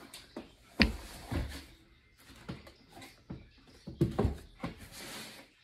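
Packaging being handled during an unboxing: knocks, taps and rustles of the box and its inserts. There is a sharp knock about a second in and a cluster of knocks about four seconds in.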